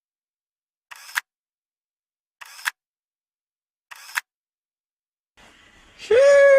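Camera shutter sound effect clicking three times, about a second and a half apart, with near silence between. Near the end a loud, howl-like sound with a slowly falling pitch sets in.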